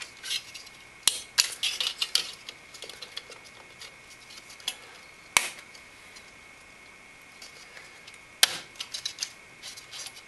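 Sharp plastic clicks and light rattling from the Arctic Freezer 13 Pro cooler's fan and plastic clips being handled and snapped into place. There are three loud single clicks, about one, five and eight seconds in, with lighter clicking around the first and last.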